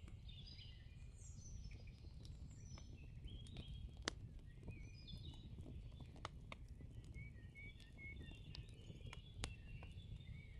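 Faint birdsong: many short chirps, several sliding down in pitch, with a few scattered sharp clicks.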